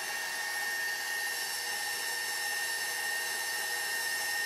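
KitchenAid stand mixer running steadily at speed 4, its motor giving a steady, noisy high whine as the dough hook works flour and liquid into bread dough.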